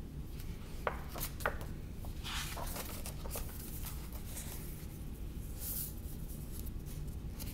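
A hardcover picture book being handled and opened: a few light clicks, then rustling as its cover and pages are turned.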